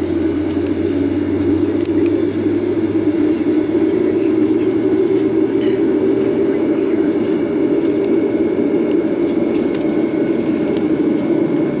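Steady rushing hum of a Boeing 737-800 as heard inside its cabin, with a faint high whine over it, as the jet moves away from the gate.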